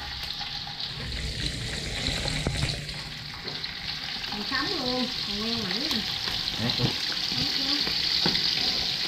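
Food sizzling as it fries in hot oil in a pan, the sizzle growing fuller a few seconds in.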